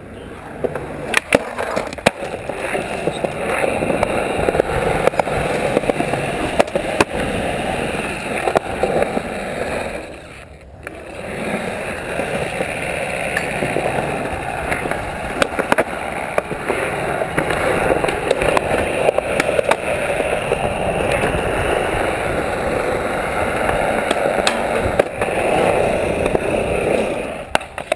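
Skateboard wheels rolling on smooth concrete: a steady rumble broken by sharp clacks from the board at irregular moments. The rumble drops away briefly about ten seconds in, then picks up again.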